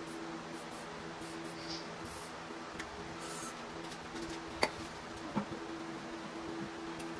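Two short hisses from an aerosol lubricant spray can, then a sharp metallic clank about four and a half seconds in and a lighter knock just after, as the steel jig rod is worked into the differential's axle tube. A steady low hum runs underneath.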